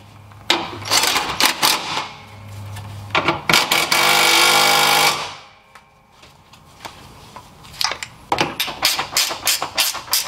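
A cordless power driver tightens the radiator support screws: short rattling bursts, then a steady run of about a second and a half a little past the middle, with a quick series of sharp clicks near the end.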